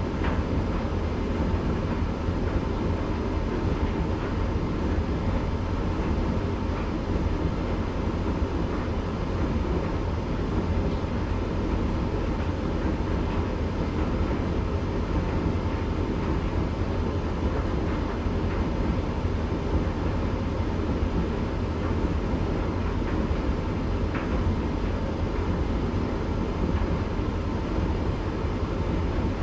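Candy GrandO tumble dryer running steadily, its drum turning a load of towels with a low, even rumble and a faint steady hum, in the cool-down stage of its Rapid 40 programme.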